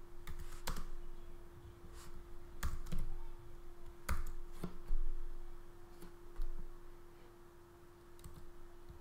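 Computer keyboard typing: scattered, irregular keystroke clicks with short pauses, thinning out near the end, over a faint steady hum.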